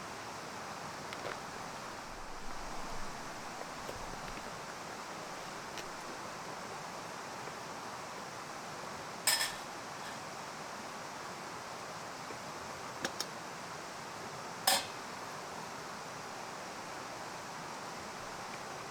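Two sharp metal clinks, about nine and fifteen seconds in, with a quick double tick between them, over a steady hiss.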